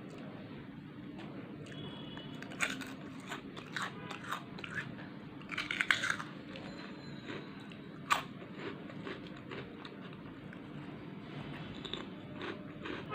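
Crisp chips being bitten and chewed: a cluster of loud crunches about three to six seconds in, another sharp crunch about eight seconds in, and softer chewing between, over a steady low hum.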